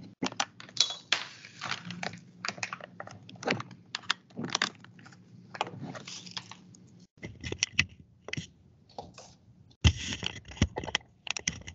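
Irregular clicks, knocks and rattles of a webcam being handled and repositioned, with a louder burst of bumping and rubbing near the end as it is moved.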